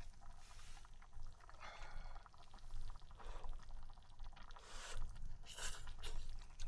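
Several short, slurping sips of hot vegetable soup, about four in a few seconds.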